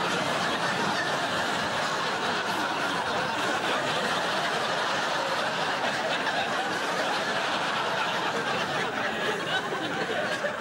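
Studio audience laughing, a dense, unbroken wave of crowd laughter at a steady level.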